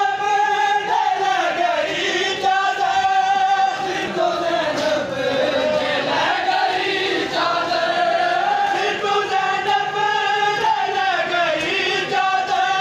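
Men's voices chanting a Muharram noha, a mourning lament, together in a continuous sung chant.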